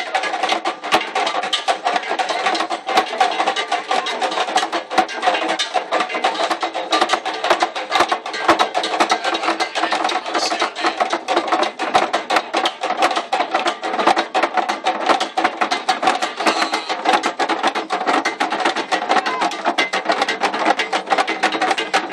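Traditional Ghanaian drumming: large drums carried on bearers' heads and struck with sticks, a dense, steady run of sharp strikes.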